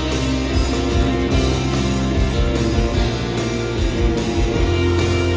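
A rock band playing live: two electric guitars, a bass guitar and a drum kit.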